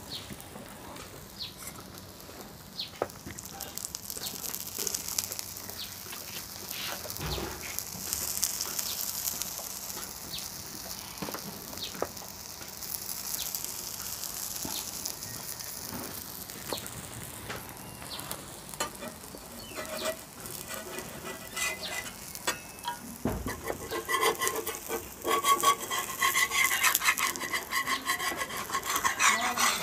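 Batter pancake frying in oil on a hot iron tawa: a steady sizzle with scattered small clicks. In the last few seconds a metal spatula scrapes against the pan as the pancake is loosened, the loudest sounds here.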